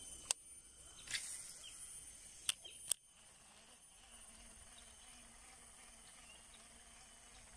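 Lakeside forest ambience: a steady high insect drone with a few faint bird chirps. Four sharp clicks come in the first three seconds, two of them close together near the end of that stretch, the sound of fishing rod and reel being handled.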